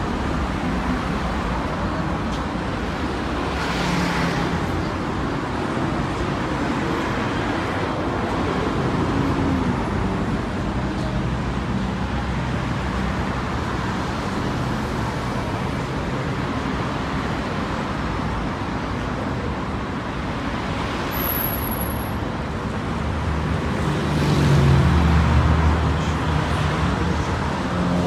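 Steady road traffic on a busy city road, cars passing close by. Near the end a louder, deeper vehicle goes by.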